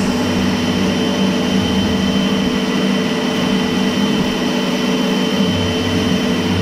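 Pressure washer running steadily and loud, its jet hissing onto an alloy wheel and tyre to rinse off wheel cleaner, with the pump's steady drone under the spray.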